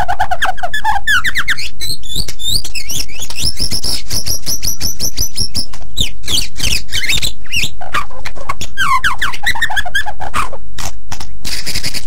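White-rumped shama singing without pause: a fast, varied run of whistled notes, trills and clicking chatter, with a stretch of rapid high notes in the middle.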